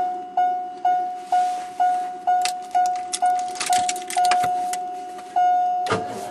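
1985 Buick Riviera's warning chime, a single tone struck about twice a second, sounding because the key is in the ignition while the driver's door is open. Keys jangle in the middle, and a thump comes near the end.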